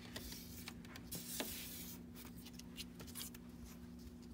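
Faint rustling and light taps of cardstock pieces being handled and laid down on a table, over a low steady hum.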